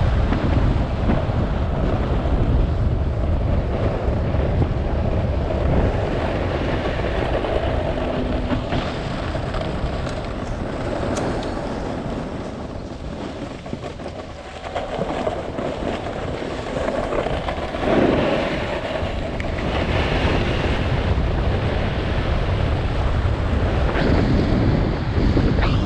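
Wind buffeting the action camera's microphone while a snowboard scrapes and hisses over spring snow on the descent. The noise eases for a moment about halfway through, then picks up again.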